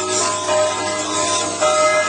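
Music: a melody of held notes, each lasting about half a second to a second.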